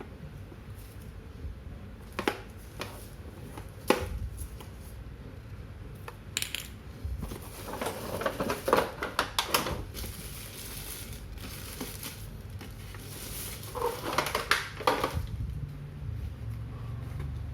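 Packaging and plastic parts being handled: scattered knocks and clicks, with two spells of crinkling and rustling, like plastic wrap or bags being pulled off.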